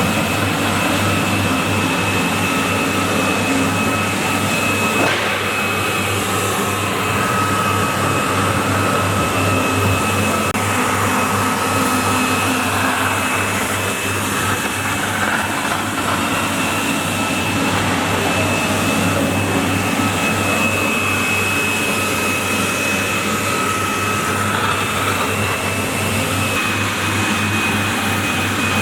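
Walk-behind floor scrubber running steadily: a constant low hum with a thin, high whine over it, much like a vacuum cleaner.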